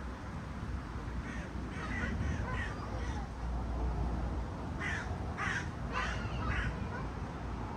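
A crow cawing: a few faint caws in the first three seconds, then four louder caws in quick succession past the middle.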